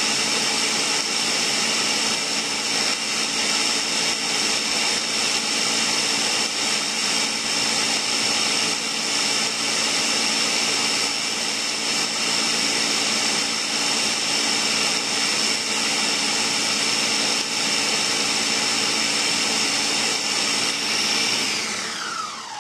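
Countertop blender running at speed, pureeing potatoes and onion into a frothy batter: a steady motor noise with a high whine. Near the end the motor is switched off and winds down, its pitch falling until it stops.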